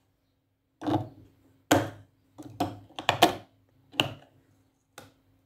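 Handling clicks and knocks from the plastic battery compartment on the back of a wooden crescent-moon lamp as it is opened and worked: about eight sharp clicks and taps, some in quick pairs, over a faint steady hum.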